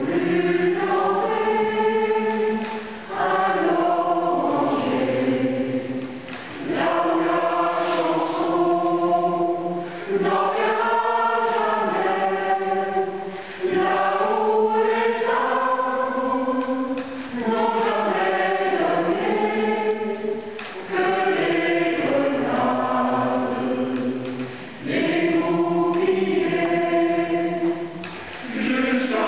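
Mixed choir of men's and women's voices singing in phrases of three to four seconds, with brief dips between them.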